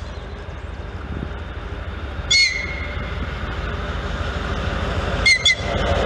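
TEP70 diesel locomotive approaching with its train, a steady low rumble growing louder. It gives one short, high-pitched whistle blast about two seconds in and two quick blasts near the end.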